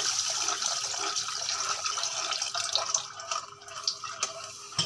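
Milk hissing and bubbling in a hot pan of ghee-roasted semolina while a wooden spoon stirs it. The hiss fades after about three seconds, leaving light spoon scrapes and taps against the pan.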